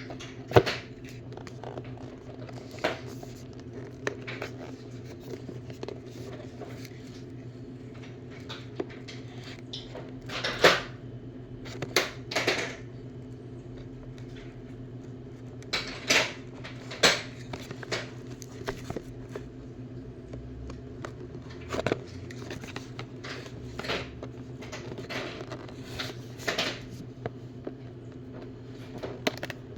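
Plastic tool case and packaging being handled, likely the ICON multi-spline screw extractor set being unpacked: scattered clicks, taps and rustles, a few sharper knocks among them, over a steady low hum.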